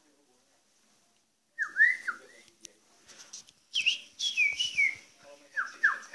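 Caged drongo (srigunting) singing clear whistles after a short silence: a couple of slurred notes, then a falling run of higher notes, then a quick series of short down-slurred whistles, about three a second, near the end.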